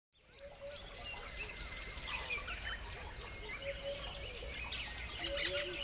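A chorus of small birds chirping and calling over one another, with some lower rounded notes mixed in, over a steady low rumble. It fades in from silence at the very start.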